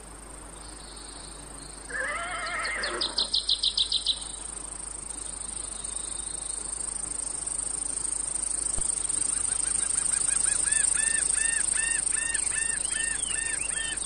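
Cicadas keep up a steady high-pitched drone in a nature soundscape, with birds calling over it. About two seconds in there is a brief call, then a quick run of about eight loud chirps. Later a repeated arched chirp, about three a second, starts up and grows louder.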